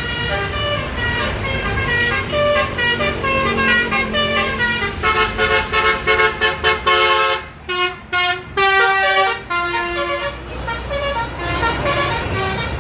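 Basuri multi-tone 'telolet' bus horn playing a quick tune of stepping notes, several pitches sounding together. About halfway through, the tune breaks into separate short blasts with brief gaps, then runs on.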